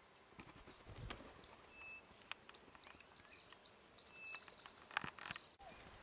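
Faint wild ambience in dry brush: two brief high chirps, a few short high insect-like buzzes, and scattered light clicks and rustles, with one sharper click about five seconds in.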